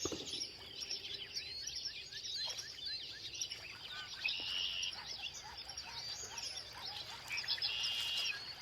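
Many birds singing and chirping at once in an early-morning dawn chorus: a dense run of quick high chirps, with two short buzzy trills partway through and near the end.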